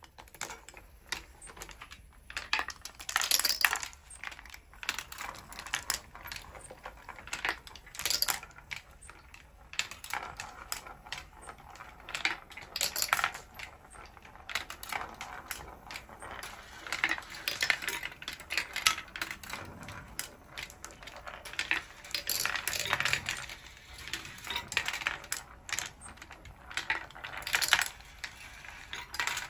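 Glass marbles running through a wooden marble machine: rolling down wire tracks and wooden chutes, dropping and clicking against each other and the wood in an irregular stream of clicks and rattles, with a louder clattering burst every few seconds.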